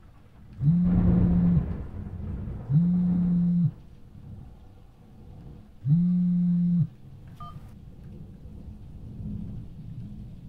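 Mobile phone vibrating for an incoming call: three steady low buzzes of about a second each, a second or two apart.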